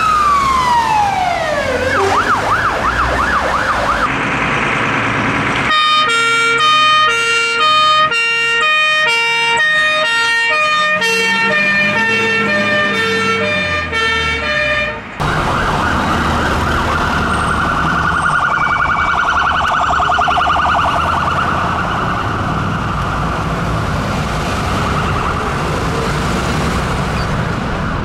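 UK fire engine sirens. A wail sweeps down and switches to a fast yelp, then a two-tone hi-lo pattern alternates for about nine seconds. After a short break, a fast warbling yelp sounds over road and engine noise.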